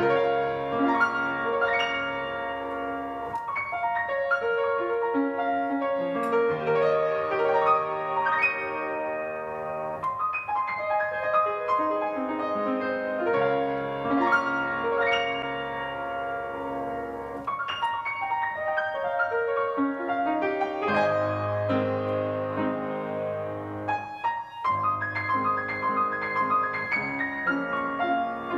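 Solo piano playing slow, sustained chords and melody.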